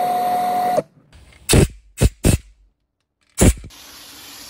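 A compressed-air blow gun blowing out the engine block's head-bolt holes: a loud hiss with a steady whistle that cuts off about a second in. A few short, sharp sounds follow. Near the end an aerosol can sprays steadily onto a bucket of head bolts.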